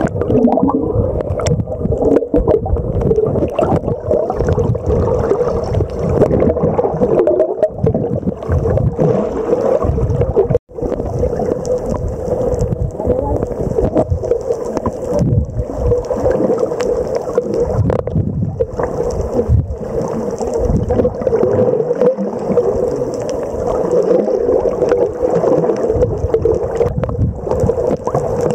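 Steady hum of a boat motor with water sloshing and gurgling. The sound cuts out for an instant about ten seconds in.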